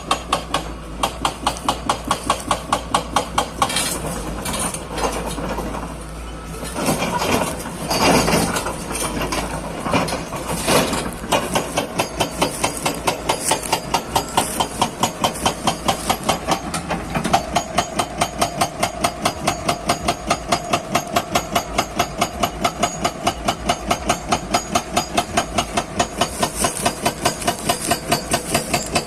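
Hydraulic breaker hammer on a Hyundai 210 excavator pounding in rapid, regular blows, with the excavator's diesel engine running underneath.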